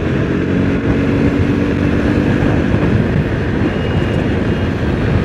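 KTM RC 200's single-cylinder engine running steadily at highway speed, heard from the saddle with wind rushing over the microphone.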